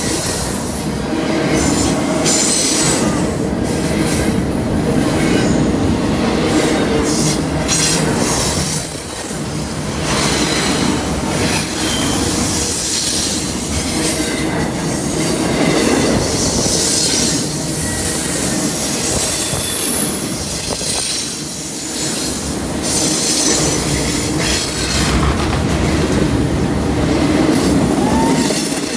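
A double-stack intermodal container freight train passing close by: a steady loud rumble and clatter of steel wheels on the rails. A high, thin wheel squeal comes and goes.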